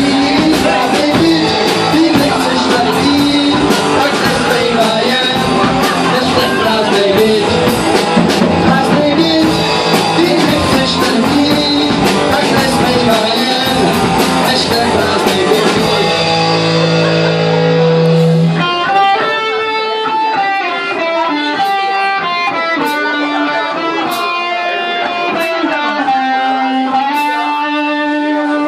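Rock band playing live on electric guitar, bass guitar and drum kit, the drums hitting steadily. About sixteen seconds in the drums drop out on a held chord, and from then on an electric guitar picks single notes, with a few lone cymbal strikes.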